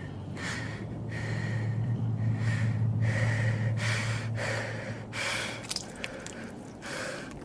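A woman panting heavily from exhaustion, a regular run of ragged breaths in and out, about one every three-quarters of a second. A steady low hum runs beneath and fades out about five and a half seconds in.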